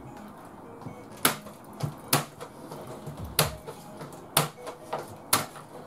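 Sharp single cracks of nails being driven into a wooden board, six of them spaced about a second apart, one weaker than the rest.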